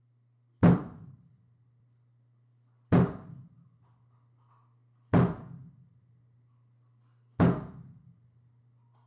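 Slow, single deep drum beats, four strikes evenly spaced a little over two seconds apart, each dying away quickly, over a faint low steady hum.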